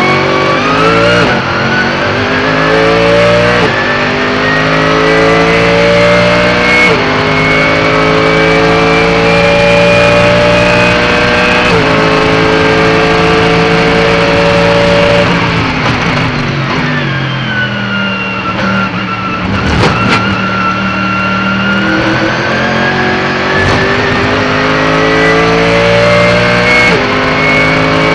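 Mercedes-AMG GT3 race car's 6.2-litre V8 heard onboard at full throttle, upshifting about 1, 4, 7 and 12 seconds in. It then brakes and downshifts down to low revs, and accelerates hard again through two more upshifts near the end. A high whine rises and falls with the car's speed.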